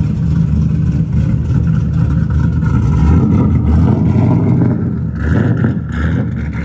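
Three-valve 4.6 L V8 engine swapped into a car, running loud and steady.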